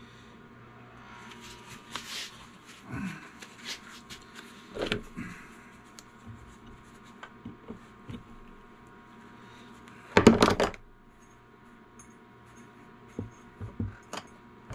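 Metal clinks and clatter of tools and cast lead weights being handled on a workbench, loudest in a rapid cluster of rattles about ten seconds in, over a faint steady hum.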